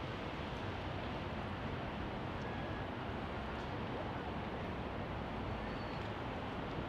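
Steady outdoor city ambience: a continuous low rumble of distant traffic, with no distinct events.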